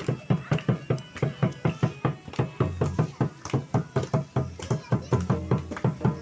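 Barrel-shaped hand drums beaten in a fast, even dance rhythm, about five sharp strokes a second over a deep thump.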